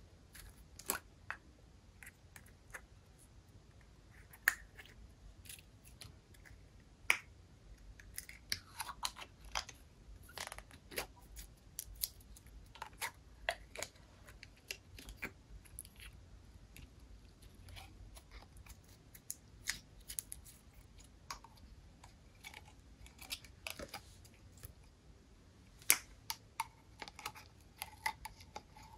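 Slime being mixed and handled: irregular small clicks, sticky pops and taps, a few a second, with a few sharper knocks.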